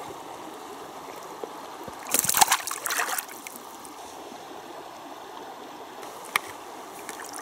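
Splashing in shallow river water as a small pike is landed by hand, loudest for about a second a couple of seconds in, over a steady trickle of water around the wader's legs. A single sharp click comes near the end.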